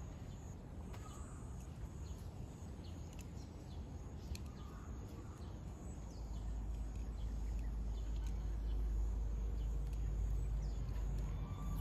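Outdoor background noise with a low rumble that grows louder about six seconds in, and a few faint, brief bird chirps.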